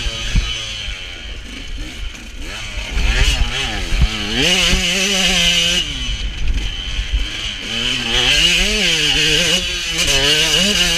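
KTM SX 125 two-stroke motocross bike running hard, its revs climbing and dropping over and over with throttle and gear changes. Wind buffets the helmet-camera microphone, with a few low thumps from the track.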